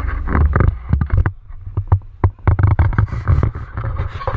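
Loud low rumble with rapid, irregular knocks and scrapes, the kind of noise a camera's microphone makes when it is handled or rubbed.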